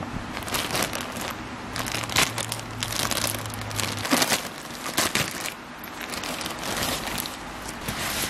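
Plastic mailer bag crinkling as hands handle and open it, then a shell jacket rustling as it is pulled out, in irregular crackles with no steady rhythm.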